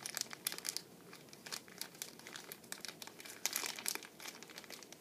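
A plastic Mike and Ike Berry Blast candy bag crinkling in irregular bursts as a hand digs in for a candy, with the loudest rustles about half a second in and again about three and a half seconds in.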